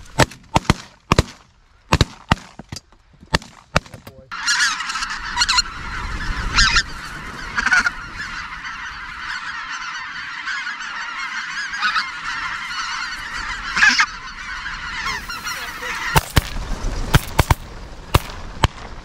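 Shotgun shots in quick succession, several in the first four seconds and again in the last three, with a big flock of geese calling continuously in between.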